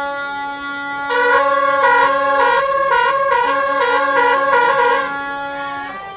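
Handheld noisemaker horns blown in a crowd of marchers: one horn holds a long steady low note while a second one toots back and forth between two higher notes from about a second in until near the end.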